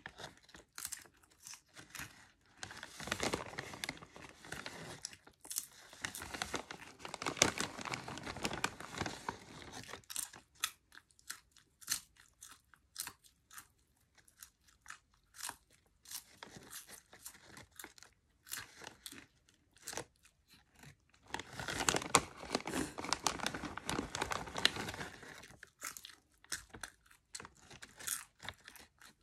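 Cheddar cheese popcorn being chewed close to the microphone: crisp crunches, with two longer stretches of dense crunching, one a few seconds in and one past the twenty-second mark.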